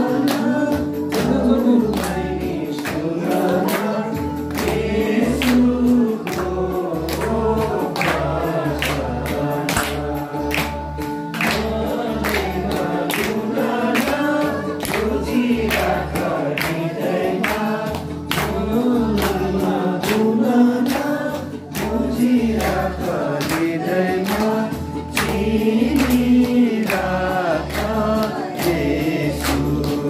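A group of voices singing a song together, with a steady percussive beat and hands clapping along.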